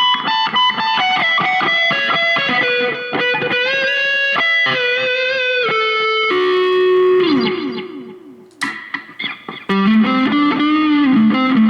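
Electric guitar with P90 pickups played through a lightly overdriven amp: a quick descending single-note run with wavering string bends, notes left ringing and fading in the middle, then a note bent up and held near the end.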